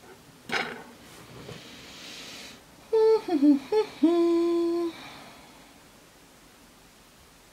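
A woman humming a few notes that step downward, then holding one note for about a second. A light click sounds about half a second in.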